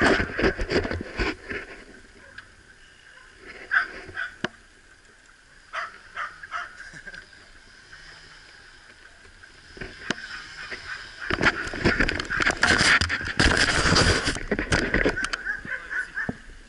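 Bicycle rolling along a paved road, with rattling and scattered knocks from the bike and its mounted camera. A louder rushing noise takes over for a few seconds past the middle.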